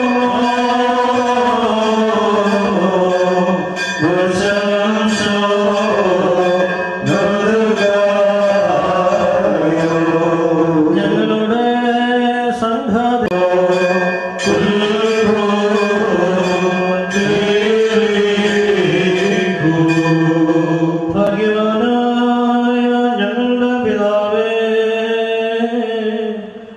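Liturgical funeral hymn of the Malankara Catholic rite, chanted by voices in a slow, continuous melody with long held notes.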